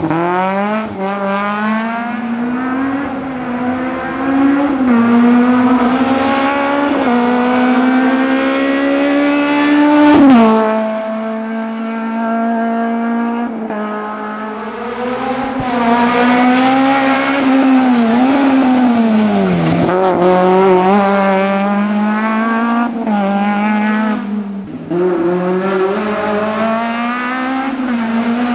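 Peugeot 309 GTI 16V rally car's 16-valve four-cylinder engine at full stage pace: the revs climb steeply again and again and fall back with each gear change and lift for the bends. The sharpest and loudest climb comes about ten seconds in, then the revs drop suddenly.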